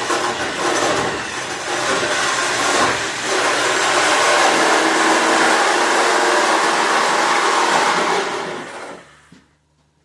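Loud whirring of a motor-driven machine with rushing air, running steadily and then winding down to a stop about nine seconds in.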